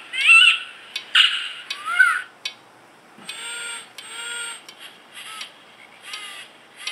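Recorded owl calls played through the small speaker of a sound chip hidden inside an owl ornament, set off by shaking it. Three quick calls gliding up and down come in the first two seconds, then a string of shorter calls.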